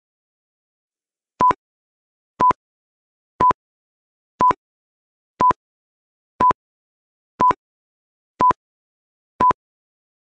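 Electronic countdown timer beeping: a short, clean single-pitch beep once a second, nine times, starting about a second and a half in, with silence between beeps.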